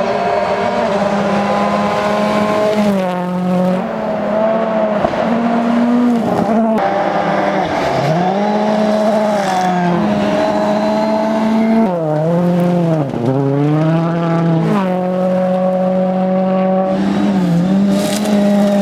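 Ford Fiesta rally car's engine running hard at high revs, its pitch dipping and climbing back several times as the car shifts and lifts through a test stage.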